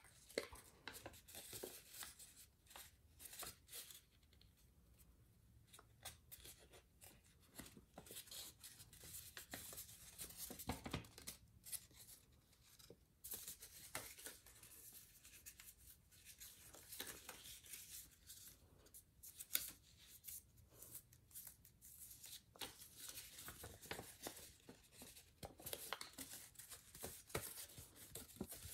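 Faint rustling and crinkling of a sheet of origami paper as fingers fold, pinch and press creases into it, in many short, irregular scrapes.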